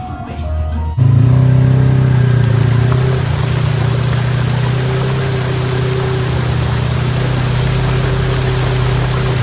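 A short stretch of music cuts off about a second in. A vehicle engine then runs steadily at low speed, with a wash of road and wind noise, as the vehicle drives slowly along a dirt track.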